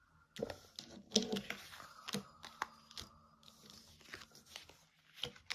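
Tarot cards being handled on a table: scattered light taps, clicks and brief rustles.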